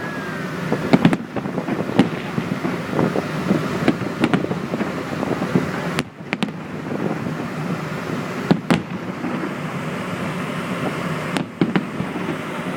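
Fireworks going off: a run of sharp bangs and crackles over a steady background rumble, with a few louder bangs spread through, the last near the end.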